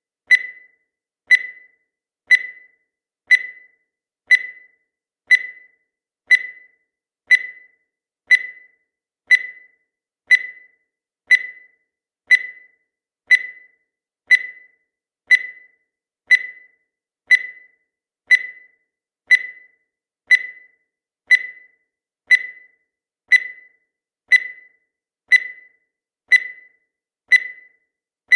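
Countdown timer sound effect: a short, high-pitched beep once every second, each one fading quickly.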